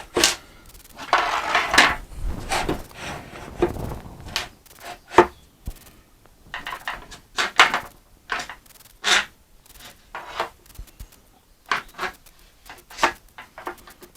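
Wooden drawer-door panel being handled on a workbench: scattered knocks and taps of wood on wood, with a short scraping rub about a second in.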